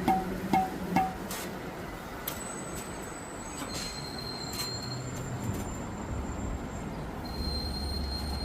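Construction-site machinery noise. Three sharp metallic clinks, each ringing briefly, come in the first second, followed by a steady mechanical din with a thin, high whine that comes and goes and a low hum toward the end.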